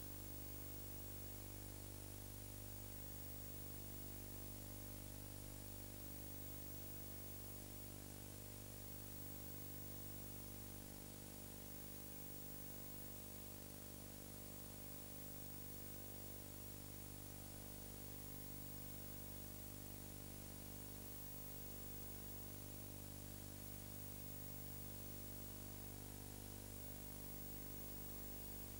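Faint steady hiss with a low electrical hum: the noise floor of an old recording, with no other sound in it.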